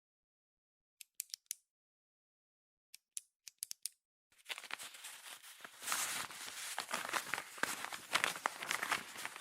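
Desk stationery sounds: two short groups of small sharp clicks, then from about four seconds in a continuous dense scratching and crinkling.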